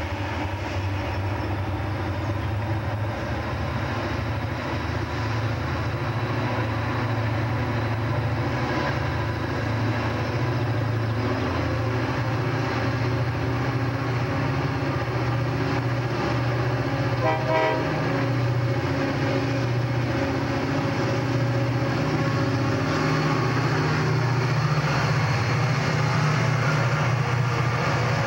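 Several Chessie-painted diesel freight locomotives working hard up a grade, their engines a steady low drone that grows louder as they approach and pass close by. A brief higher-pitched tone sounds about two-thirds of the way through.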